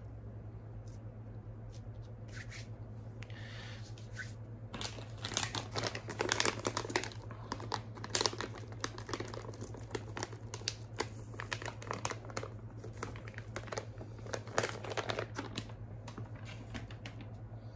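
Irregular crinkling and crackling of handled plastic packaging, busiest and loudest from about five seconds in until near the end, over a steady low hum.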